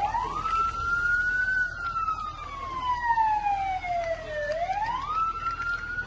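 Fire engine siren wailing: the pitch climbs quickly, falls slowly over about three seconds, then climbs again about five seconds in.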